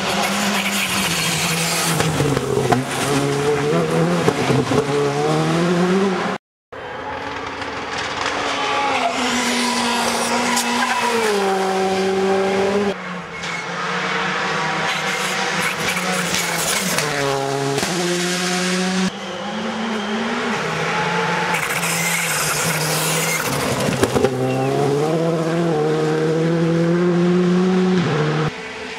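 Rally cars at full speed on a special stage, engines revving high and dropping through quick gear changes as they pass. Several passes follow one another, with a brief dropout about six seconds in.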